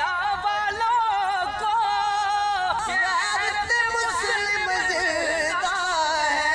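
Men singing an Urdu kalam in a car, their voices drawn out in long wavering, ornamented notes.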